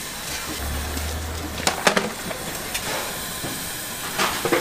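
Steady hiss of a busy soup-stall kitchen with sharp clatters of utensils and bowls, two close together about two seconds in and a cluster near the end.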